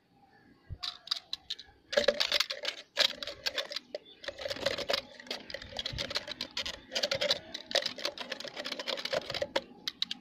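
Homemade plastic-bottle blender's small motor switched on in short bursts, chopped tomato rattling and clicking against the plastic jar.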